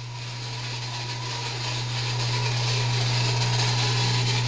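A steady low mechanical hum with an airy rushing noise, like a running motor or fan, growing louder over the first two seconds and then holding level.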